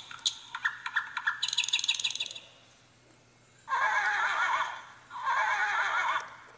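Electronic sound effects played through the small speaker of a children's sound board book as its buttons are pressed. There is a quick run of chirps for about two seconds, then two separate wavering calls of about a second each.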